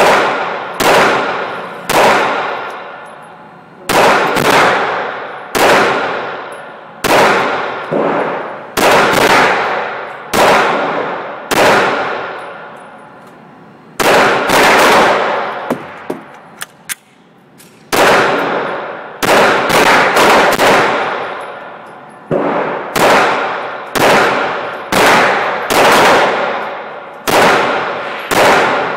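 Springfield XD 9 mm pistol fired repeatedly in an indoor range, each shot a sharp crack with a long ringing echo. Roughly thirty shots, some single and some in quick strings of two to four, with a lull of a couple of seconds past the middle.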